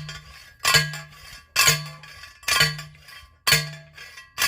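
Steel T-post being driven into the ground: metal-on-metal strikes about once a second, five in all, each a sharp clank with a brief ring.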